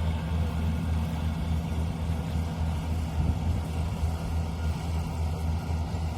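Daedong DSC 62G half-feed combine harvester running steadily, its engine giving a low, even drone.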